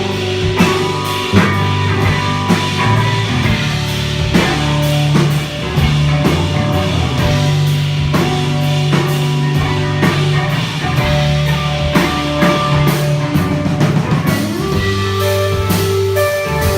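Rock band playing live: a drum kit keeping a steady beat under bass and guitar.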